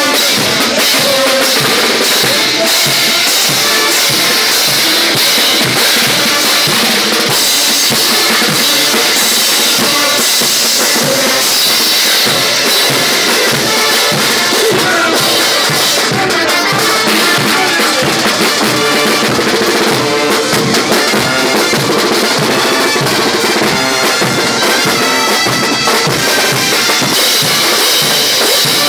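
Loud festive dance music with a steady beat, driven by bass drum, snare and cymbals.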